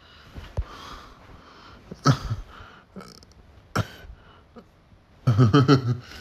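A person's voice making short non-speech sounds: sharp bursts about two and four seconds in, then a louder pitched vocal sound near the end.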